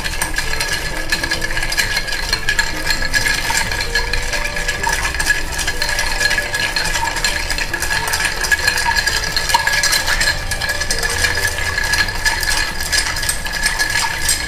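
Ice cubes clinking and rattling against the wall of a glass mixing glass as a bar spoon stirs a cocktail: a steady, rapid stream of small clicks.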